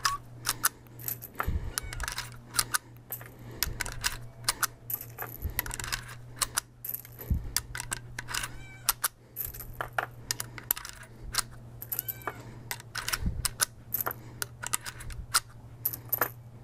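Brass .357 Magnum cartridges clicking and clinking as they are thumbed one by one through the loading gate of a Rossi R92 lever-action rifle into its tube magazine, which has a shortened spring. Sharp metallic clicks come at irregular intervals, some with a brief high ring, over a steady low hum.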